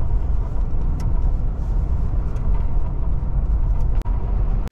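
Car driving, heard from inside the cabin: a steady low rumble of engine and road noise, with a couple of faint clicks.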